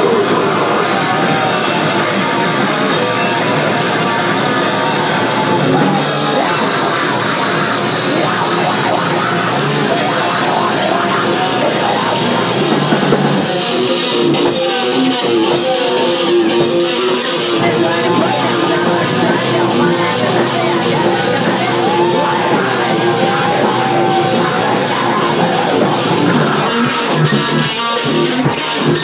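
Live rock band playing loud: electric guitars through amplifiers and a drum kit. About halfway through, the highest sounds thin out for a few seconds.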